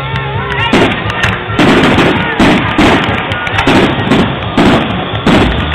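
Fireworks going off in quick succession: repeated bangs with crackling that start about a second in and come every half second to a second, over music, recorded on a phone's microphone.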